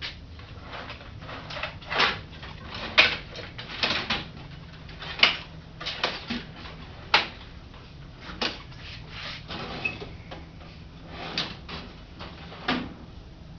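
Rummaging among hand tools while looking for pliers: a string of irregular knocks and clinks, some sharp, spaced unevenly.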